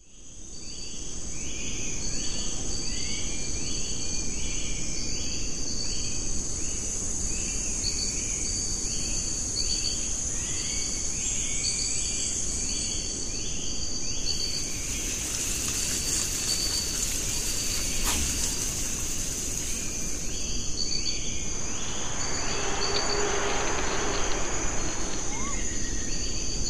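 Wild forest ambience fading in. Insects shrill steadily, and a short falling chirp repeats about every two-thirds of a second. A louder high insect buzz swells in at about the middle and cuts off a few seconds later.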